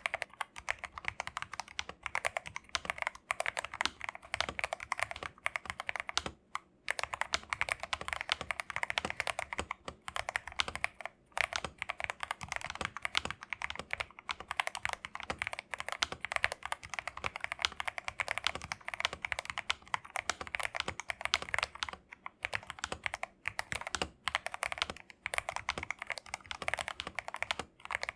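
Fast, continuous typing on an MK870 mechanical keyboard with Akko Jelly Black linear switches, a dense stream of keystrokes with brief pauses about six and eleven seconds in.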